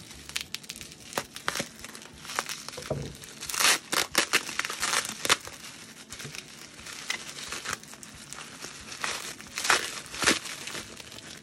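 Plastic wrapping crinkling and tearing as it is cut with scissors and pulled open by hand: a run of sharp crackles and rustles, loudest about four seconds in and again near ten seconds.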